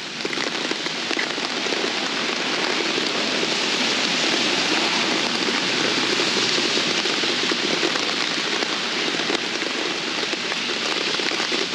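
Heavy rain pouring down, a steady dense hiss of the downpour.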